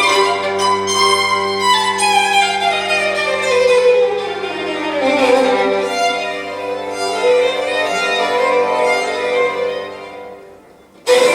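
Recorded violin music played back over a hi-fi loudspeaker system: long, sustained violin notes over a held low note. The music fades away near the end, and a loud new passage starts abruptly just before the end.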